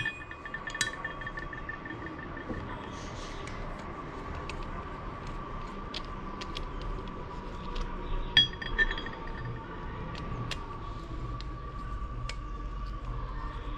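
Metal pieces clinking and being tapped: a sharp strike at the start and another about eight seconds in each leave a short metallic ring, with small light taps in between. A steady high hum runs underneath.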